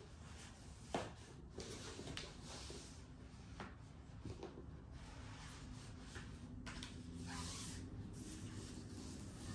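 Cloth sleeve rubbing and swishing as it is worked off a soundbar, with a sharp click about a second in and a few lighter knocks from handling.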